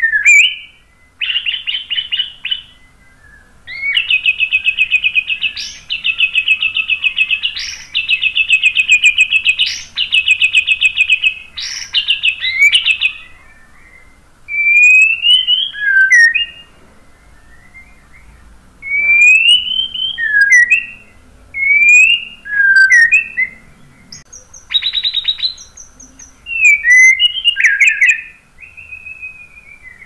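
Male white-rumped shama (murai batu) singing loudly. First come long runs of fast, even trills, each lasting a second or two. Then comes a string of rising whistled phrases that break into quick falling notes, with one short trill about two-thirds of the way through.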